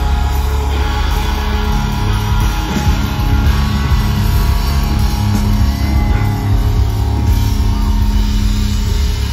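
Live rock band playing loud amplified music, with drum kit and electric guitar, heard from among the concert crowd.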